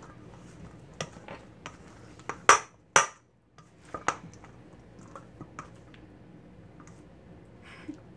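A plastic spatula scraping and knocking against a stainless steel mixing bowl as thick chicken salad with mayonnaise is stirred. Scattered light clicks, with two sharper knocks about a third of the way in.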